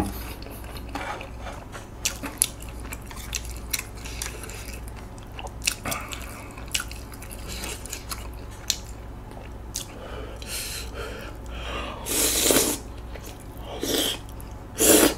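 Close-miked mouth sounds of eating tteokbokki: wet chewing and biting, scattered with small clicks of chopsticks against a bowl. A few louder, short mouth noises come near the end as more food goes in.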